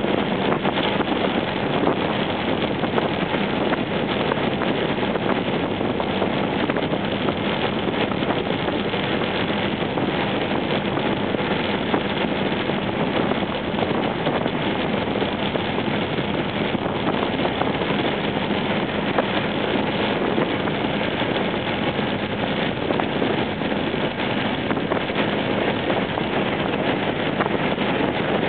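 Steady rush of wind on the microphone and road noise from a Honda PCX scooter riding at speed, with a faint steady engine hum underneath.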